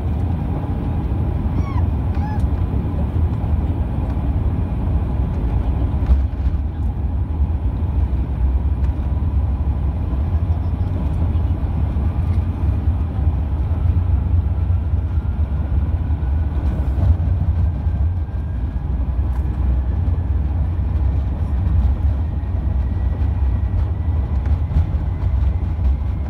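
Airbus A380 with Engine Alliance GP7200 engines taxiing, heard from inside the cabin: a steady low rumble from the engines at taxi power and the airframe rolling. A faint whine rises slowly in pitch over the second half.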